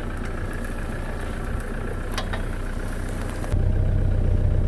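Toyota Hilux engine idling, with two sharp clicks a little over two seconds in; the engine's low hum then grows louder near the end.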